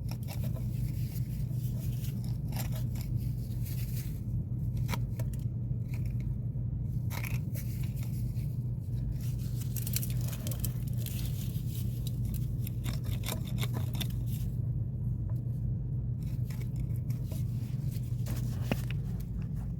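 A long screwdriver poking and scraping inside a clogged drain pipe fitting, working loose sludge: irregular short scrapes and clicks over a steady low hum.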